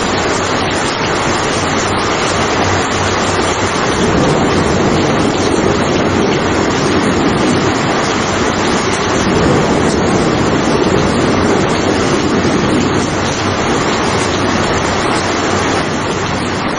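Steady heavy rainfall: a loud, even wash of rain noise that holds without break.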